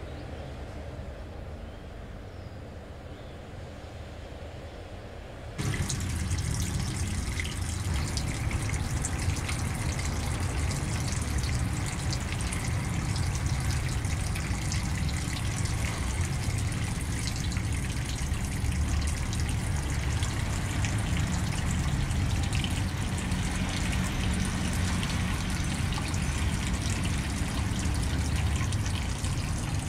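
Water pouring from a pipe into a fish tank: a steady, loud rush of falling water that starts abruptly about five seconds in, with only a low hum before it.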